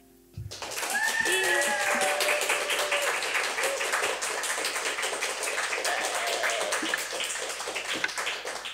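Audience clapping and cheering, starting about half a second in, with a few whoops early on, then the clapping slowly thins.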